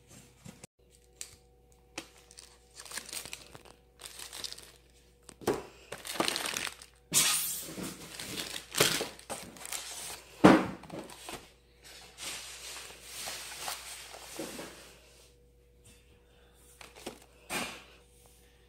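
Packaging being handled during unpacking: crinkling, rustling and tearing of paper-and-plastic wrapping and printed card food boxes, in irregular bursts with a few sharp knocks.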